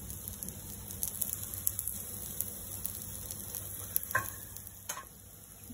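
Quinoa and mashed-potato patties shallow-frying in a little oil in a nonstick pan: a steady, light sizzle with fine crackling. Two short clicks come about four and five seconds in.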